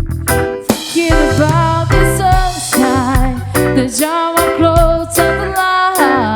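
A reggae band playing live, with a lead melody that slides and wavers in pitch over a steady bass line and drums.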